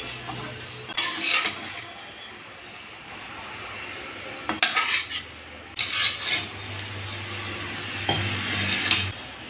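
Flat steel spatula stirring and scraping dry vermicelli around a black kadai, toasting it in a little sunflower oil. Irregular scrapes and rustles come about a second in, around the middle and near the end, over a soft sizzle.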